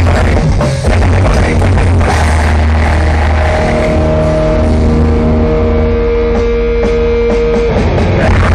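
Grindcore band playing live through a festival PA, loud. About three seconds in, the playing thins to a few held, ringing notes, and the full band comes back in near the end.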